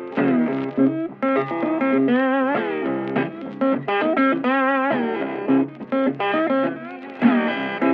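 Background music led by a guitar playing a melody, many of its notes wavering with vibrato.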